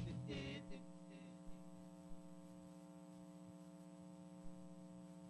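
The tail of a music jingle dies away in the first second, leaving a faint, steady electrical mains hum with a few soft ticks.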